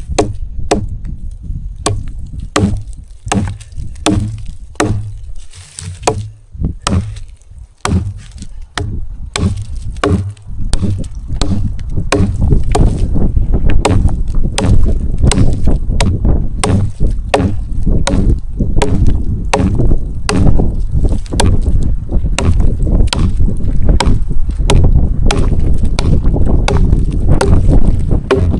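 Strong wind buffeting the microphone, as a heavy low rumble that grows louder partway through, over many sharp, irregular knocks or taps, about one to three a second.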